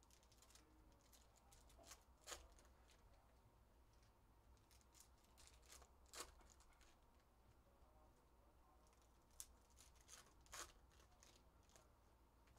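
Faint crinkling and tearing of foil trading-card pack wrappers being opened by hand, with a few sharper crackles scattered through.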